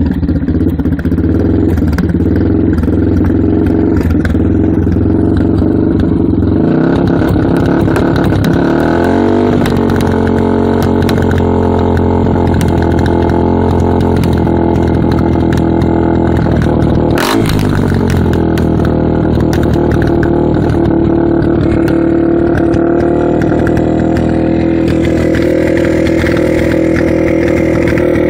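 Yamaha TT-R230 single-cylinder four-stroke engine running at a rough idle, which may carry the sucking sound the owner is chasing. Engine speed climbs between about seven and ten seconds in and then holds, and there is one sharp snap about two-thirds of the way through.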